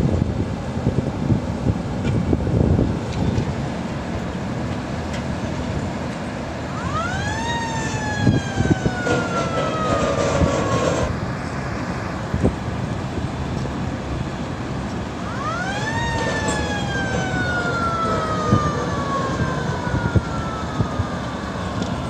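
Bucket wheel excavator running with a steady low mechanical rumble and occasional clanks, while a siren wails twice: each wail climbs quickly, then slides slowly down over three to four seconds.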